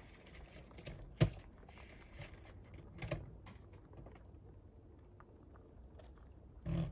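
Rabbits shifting about on the wire-mesh floor of a wooden hutch: scattered light clicks and taps, with one sharp click about a second in, a few more around the middle and a duller knock near the end.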